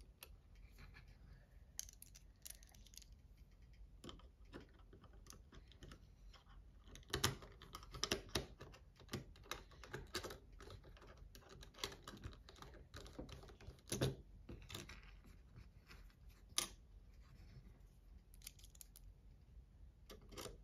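Faint, scattered light clicks and taps of small metal parts and a driver being handled while a Demko AD20 folding knife is reassembled, with a few louder clicks now and then.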